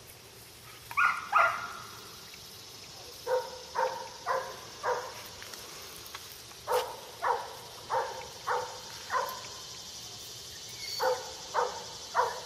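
A dog barking in short bouts of sharp, evenly spaced barks, about fifteen in all, the first two loudest. A steady high insect buzz runs underneath.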